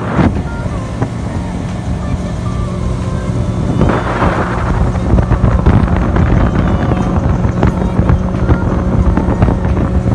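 Speedboat engine running steadily under way, a low drone with wind buffeting the microphone. A louder rush of wind noise comes about four seconds in.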